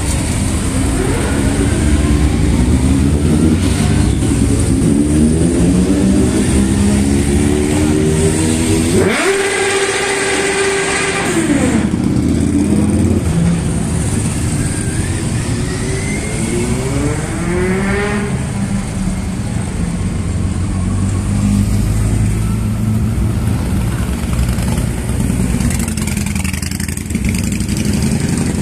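Motorcycles riding past one after another in a slow procession, engines running and revving up and down. About nine seconds in, a loud tone rises and then holds for about two seconds.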